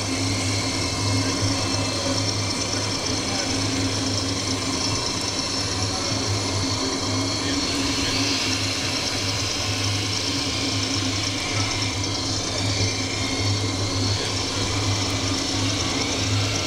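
Steady diesel-engine running sound from a radio-controlled model fire engine's sound module, with a low pulsing hum, over background chatter.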